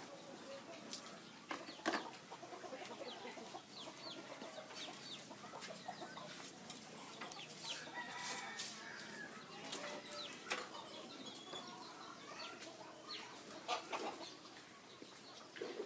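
Chickens clucking in a farmyard, with scattered short clicks and rustles and a sharp knock about two seconds in.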